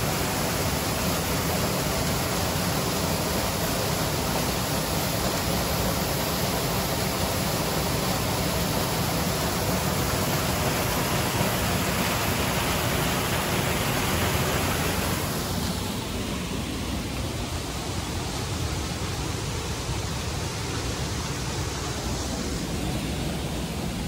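Waterfall rushing steadily. About two-thirds of the way in the rush turns duller and a little quieter.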